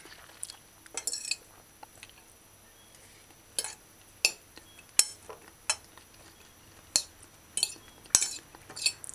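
Cutlery clinking and scraping against a plate of rice as someone eats: about a dozen sharp, irregular clinks with quiet between them.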